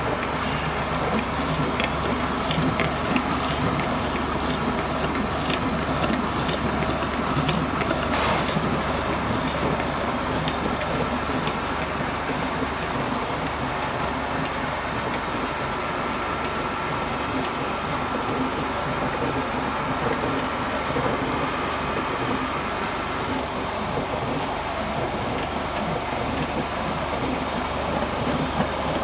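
Drilling machine running steadily with a large twist drill cutting into a clamped metal part: an even mechanical noise with a faint high whine through much of it.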